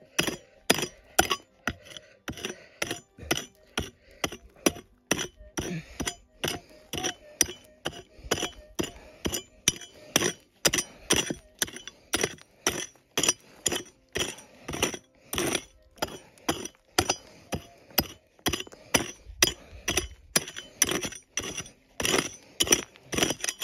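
A hand digging tool striking rocky, stony ground in a steady rhythm of about two blows a second, each with a sharp clink off rock: digging down to a detector target in a hole that has hit rock and loose stones.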